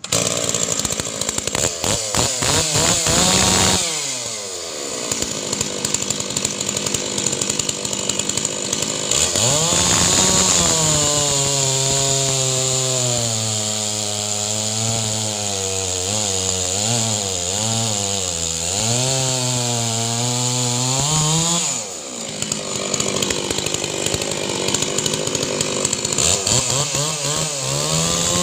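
MS 660-pattern two-stroke chainsaw at full throttle, cutting through a hard-skinned palm log. The engine pitch sinks and wavers under load for about ten seconds, climbs back up when the load eases around twenty seconds in, then drops again into another cut near the end.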